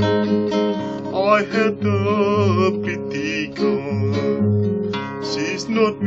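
A man singing with vibrato over a fingerpicked classical acoustic guitar. The voice comes in about a second in, and the guitar's bass notes pulse in a steady rhythm underneath.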